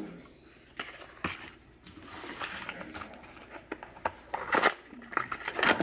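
Small items being handled and set down on a kitchen countertop: scattered light clicks and knocks, among them a small cardboard box of food colouring put down on the counter.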